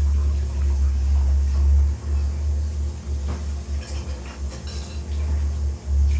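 A low, steady rumble, with a few faint light clinks in the middle.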